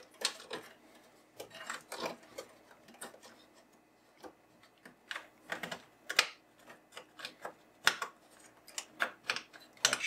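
Irregular small clicks and light knocks of plastic wire connectors and cable being handled and pushed into place inside an espresso machine's wiring.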